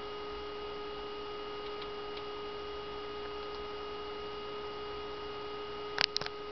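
Steady electrical hum: a few constant tones over a light hiss. About six seconds in come three quick clicks.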